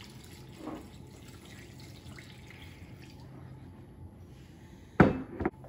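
Chicken stock being poured into a slow cooker's crock, a faint steady trickle of liquid. About five seconds in come two sharp knocks.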